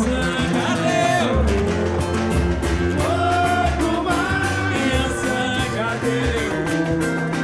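Live samba band playing: voices singing the melody together over deep surdo bass drum beats, busy hand percussion and a strummed string instrument.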